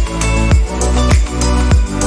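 Background music with a steady beat: a kick drum and bass thump a little under twice a second under sustained melodic tones.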